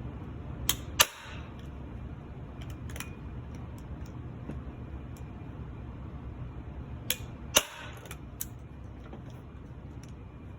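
Staple gun fired twice, driving staples to fasten a strap to a high chair: a sharp snap about a second in and another about six and a half seconds later, each with a lighter click just before it.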